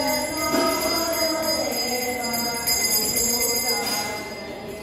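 A group of children singing together in unison, with a steady sustained tone underneath. A bright metallic jingle sounds about half a second in and again near the end.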